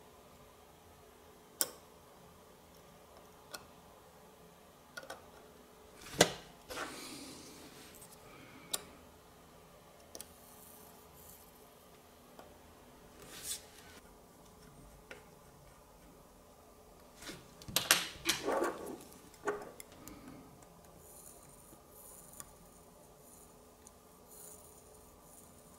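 Steel tweezers and a hand tool clicking and scraping on the small metal parts of a vintage chronograph watch movement: scattered sharp ticks, the loudest about six seconds in, and a busier run of clicks and scraping about eighteen seconds in.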